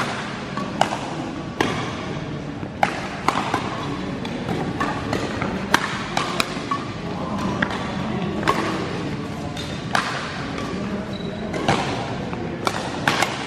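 Badminton rally: sharp cracks of rackets striking the shuttlecock, irregular, about one every second or so, over the echoing background noise of a large sports hall.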